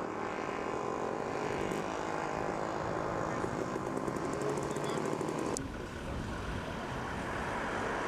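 Steady engine noise from a helicopter, with its rotor heard as a fine even chop in the middle. After a sudden change a little past halfway it becomes a lower, duller rumble.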